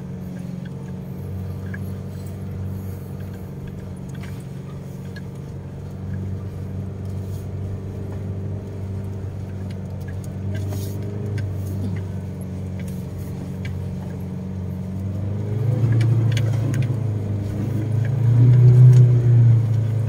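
Car engine heard from inside the cabin, running steadily as the car drives slowly over a rough dirt road, with scattered small knocks and rattles. From about three-quarters of the way through, the engine grows louder as the car starts up a steep slope.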